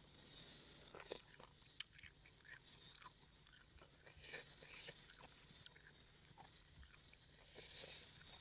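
Faint, soft sticky sounds of fresh khanom jeen rice noodles being pulled apart by hand, with a few scattered sharp clicks.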